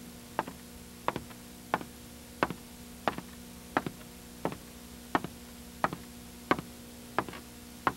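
Slow, regular ticking, about three ticks every two seconds, a few of them doubled, over a faint steady hum.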